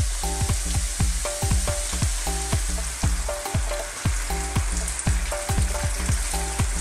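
Pork belly cubes sizzling in hot oil in a frying pan, with water poured into the pan in the second half. Light background music with a steady beat plays underneath.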